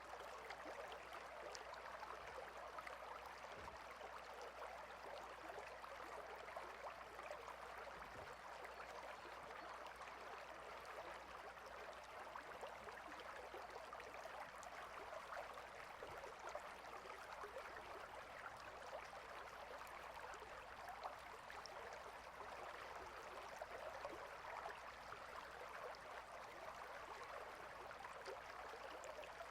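River water flowing: a steady, faint rushing with scattered small splashing ticks.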